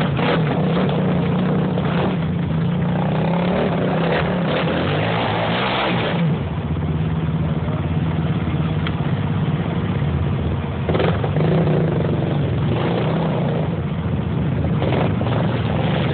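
Small ATV (quad bike) engine running and being revved as it is ridden, its pitch rising and falling with the throttle, strongest a few seconds in.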